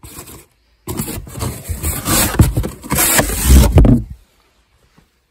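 Cardboard boxes and books being shifted and handled close up: a short scrape, then about a second in a longer stretch of scraping and rubbing with a few low thumps, stopping about four seconds in.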